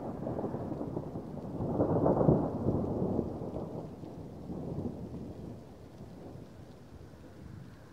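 Thunder rumbling from a severe storm, swelling to its loudest about two seconds in and then rolling away into a fainter rumble.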